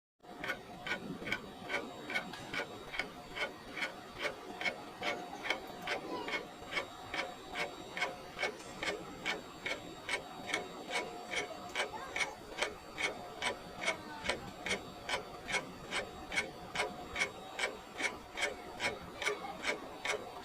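A clock ticking steadily, about two ticks a second, over faint background noise. It starts abruptly out of silence.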